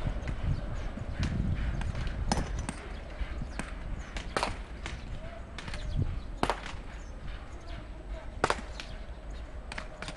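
Freight wagons' wheels clacking over rail joints as the train rolls away: irregular sharp clacks, roughly one every second or two, over a low rumble.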